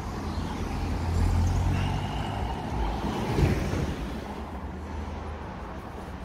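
Street traffic: car engines running close by in slow traffic, a low steady rumble that swells about a second in. A brief low bump about three and a half seconds in is the loudest moment.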